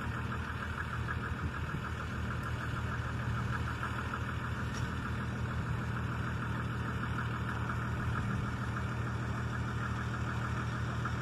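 An old truck's engine idling steadily: a low, even hum with a fast, regular clatter above it.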